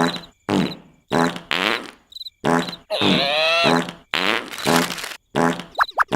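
Cartoon larva's comic snoring: a string of short snores and puffs, roughly two a second, with one longer snore falling in pitch about three seconds in. Faint high chirps sound between the snores.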